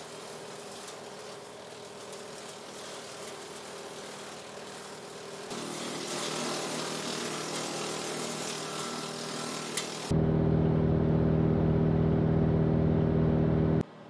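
Tractor-driven WoodMaxx WM-8M wood chipper running under PTO power while chipping leafy limbs, a steady mechanical hum with engine tones. It jumps louder about five and a half seconds in, and again about ten seconds in, where a strong low hum takes over, then drops off abruptly just before the end.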